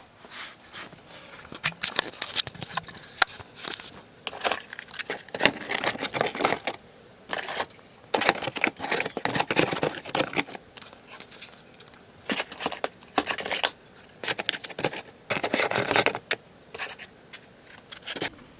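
Packaging being opened and handled: irregular crinkling, rustling and tearing in short bursts, with scattered small clicks and knocks.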